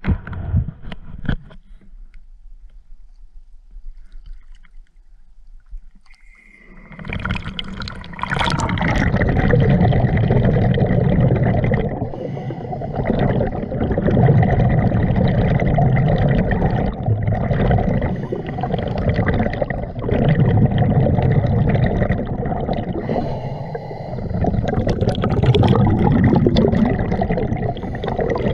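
A few light splashes at the water's surface. About seven seconds in, the sound turns into a loud, muffled underwater rumble of a diver's breathing and exhaled bubbles. It swells and eases every few seconds.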